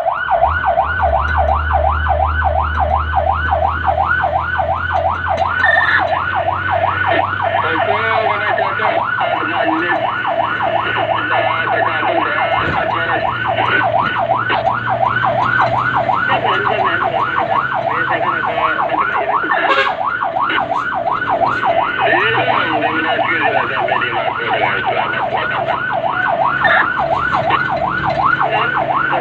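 Fire truck siren on fast yelp, about three rising sweeps a second, over the truck's engine, which rises in pitch over the first several seconds as the truck accelerates.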